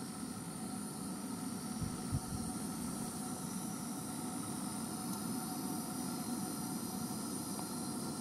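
Wind buffeting the camera's microphone: a steady rushing rumble, with two brief stronger knocks about two seconds in.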